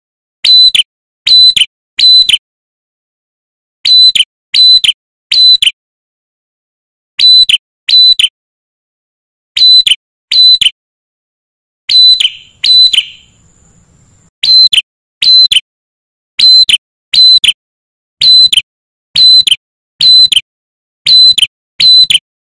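Male ashy tailorbird calling a loud, sharp whistled note over and over, about 0.7 s apart. The notes come in runs of two or three with short gaps, then run steadily through the second half.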